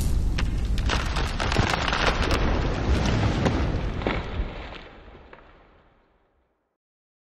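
Sound effect for an animated logo intro: a low rushing noise scattered with sharp crackles, dying away and ending in dead silence about five and a half seconds in.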